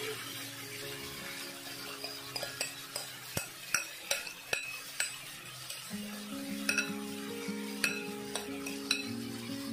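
A metal spoon clicking and scraping about a dozen times as marinated chicken is pushed into a kadai of hot oil, with the oil sizzling underneath. Soft background music with held notes runs along, louder from about six seconds in.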